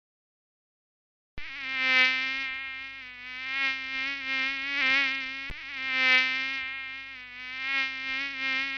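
A flying mosquito's high, steady whine, starting abruptly after about a second and a half of silence and swelling and fading in loudness every few seconds as it comes close and moves off. There is a brief click about five and a half seconds in.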